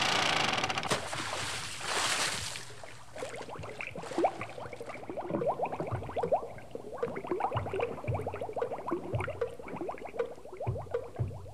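Reservoir water lapping and gurgling against the shore: a rush of splashy noise for the first few seconds, then a quick, uneven run of small plops and glugs with soft low thuds.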